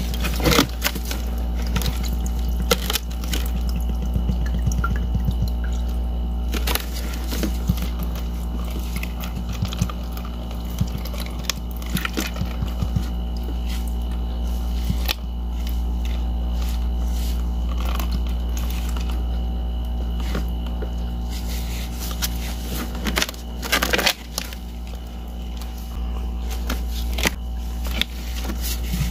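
Gloved hands turning a hollow ice ball frozen in a balloon, the ice giving scattered crackles and taps while unfrozen water sloshes inside the shell. A steady low hum runs underneath.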